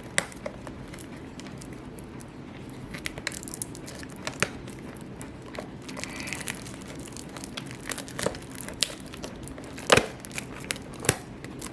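Crinkling and rustling of trading-card packaging as a booster box and its packs are handled, with scattered small clicks and one sharper tap about ten seconds in.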